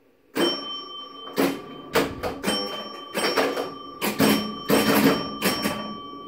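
1963 Bally Star-Jet electromechanical pinball machine in play: a quick, irregular run of mechanical clacks from flippers, bumpers and relays. These start sharply about half a second in, over a steady high ringing tone.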